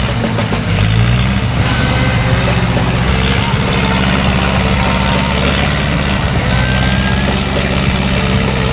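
A vehicle engine running steadily at low revs, its pitch rising slightly about a second in.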